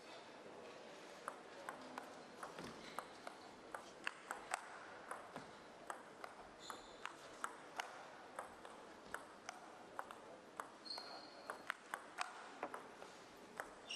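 Table tennis rally: the ball clicks off the bats and the table in a long, steady back-and-forth, about two to three hits a second, in a quiet hall. A couple of brief high squeaks come through midway and near the end.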